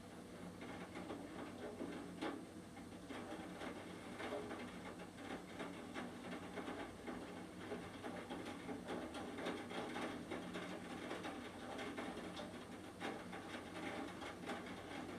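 Rain pattering, with drops tapping in quick, irregular ticks.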